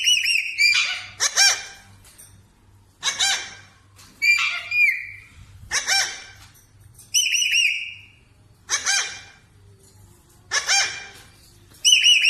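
Pet parrot calling over and over, a call about every second and a half. Its harsh calls alternate with runs of short, quick whistled notes.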